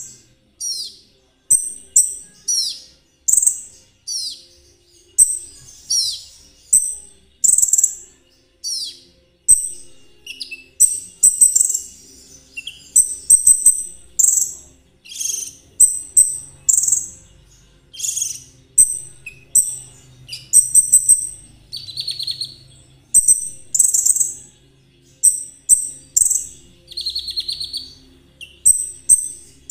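Konin songbird (trotol variety) singing in full voice: a continuous run of high, sharp chirps and down-slurred whistled notes, about one to two a second, some breaking into quick rattling trills.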